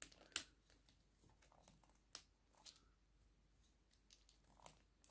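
Near silence with a few faint, sharp clicks and light rustles from handling a plastic fashion doll: the strongest about half a second in and just after two seconds.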